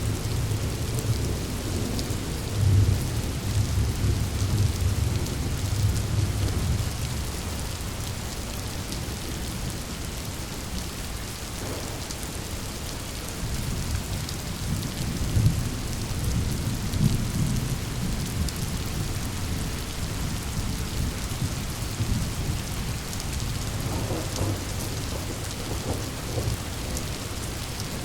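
Thunderstorm: steady heavy rain with deep rolling thunder rumbles, strongest in the first few seconds and again near the middle.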